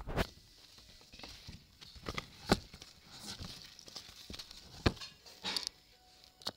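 Irregular knocks, taps and rustling of a handheld camera being moved against vertical window blinds and set down on a windowsill, with two sharp knocks standing out.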